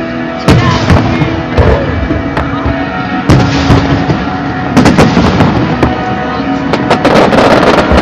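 Aerial fireworks bursting: separate loud bangs about half a second and three seconds in, then clusters of rapid bangs and crackle around five seconds and near the end, over steady background music.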